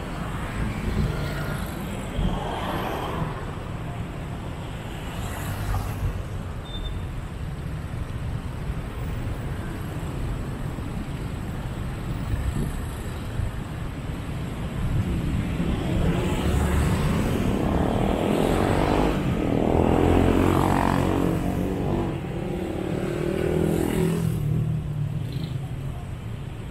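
Busy city road traffic: a steady rumble of passing vehicles, with one engine passing close by and louder through the second half.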